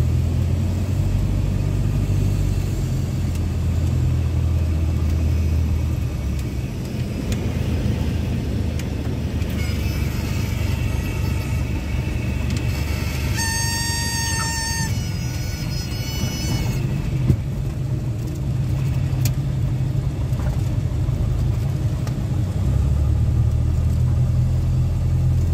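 Cessna 172S's four-cylinder Lycoming engine and propeller drone heard in the cockpit through a landing. The engine note drops about six seconds in as power comes back. Around the middle the stall warning horn sounds for a couple of seconds in the flare, followed by a single short knock. The engine note rises again near the end.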